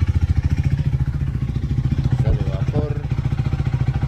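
KTM 390 Adventure's single-cylinder four-stroke engine idling steadily with a fast, even exhaust beat. The engine is warming up after a cold start.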